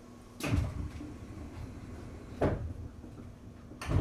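Sliding passenger doors of a Seibu 4000 series train closing before departure: three heavy thumps, about two seconds and then a second and a half apart, over a low steady hum.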